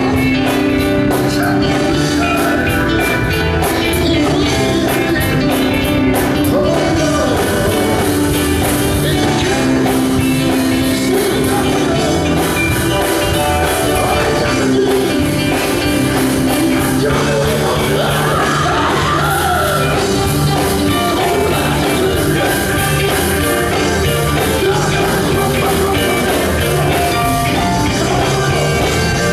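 Male gospel vocal group singing into microphones over a live band with drums and guitar, with cymbal strikes through the first several seconds.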